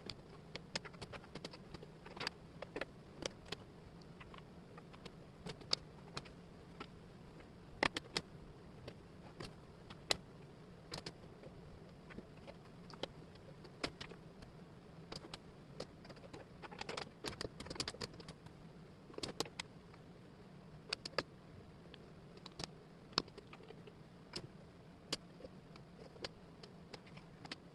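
Wooden jigsaw puzzle pieces clicking and tapping irregularly as they are handled and fitted together, over a faint steady hum.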